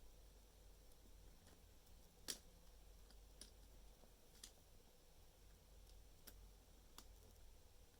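A few sharp, scattered plastic clicks of Lego Technic pieces being handled and pushed together, about half a dozen over the stretch, the sharpest a little over two seconds in, against near silence.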